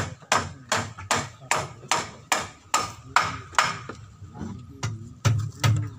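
Hammer blows on wood, a steady run of about two and a half strikes a second, typical of nailing planks during construction of a wooden goat pen. The blows weaken and become sparser after about three and a half seconds.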